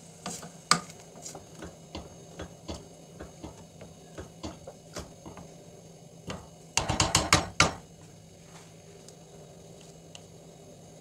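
Wooden spoon stirring lentils and rice in water in a stainless steel pot, with scattered light knocks against the pot. About seven seconds in comes a quick run of about seven loud knocks as the spoon is tapped against the pot.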